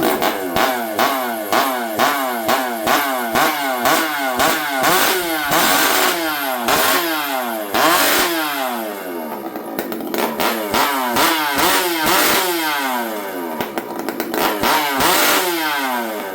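Stihl 064 two-stroke chainsaw running, its throttle blipped over and over so that the engine revs up and drops back about twice a second. Around the middle it falls back toward idle for a couple of seconds, then the quick revving starts again.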